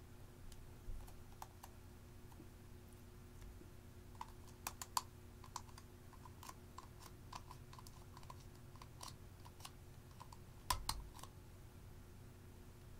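Faint clicks and taps of a small metal spatula against a lipstick tube and a glass dish as lipstick is scooped out, with a run of light ticks and a few louder clicks about five seconds in and again near eleven seconds. A steady low hum underneath.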